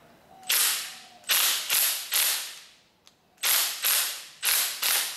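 Cordless impact driver with an 18 mm bit hammering in short trigger bursts, each one whirring down, as it cracks loose a motorcycle front fork's top cap just a little.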